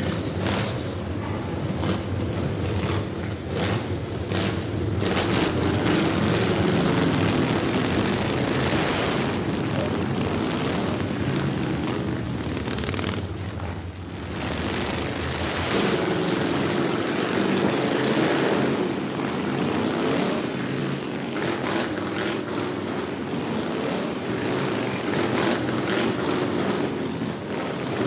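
Several motorcycle engines running loud together, a continuous rumble that swells and eases, dipping briefly about halfway through.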